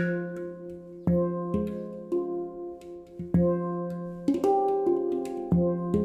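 L'Atelier de Maru F Equinox 10 handpan (2nd gen late) played by hand in an improvisation: the low F3 ding struck about every two seconds, with higher tone fields ringing over it and light taps in between. Each ding stroke sets the F4 and F5 notes ringing along with it, so the instrument rings with stacked Fs.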